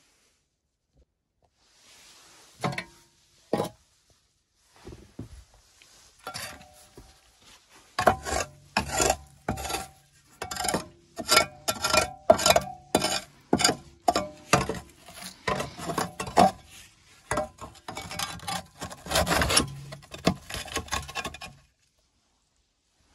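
Repeated scraping strokes in the ash of a rusty cast-iron stove, about two a second, with a faint metallic ring as the iron is scraped. Two sharp knocks come first, about three seconds in.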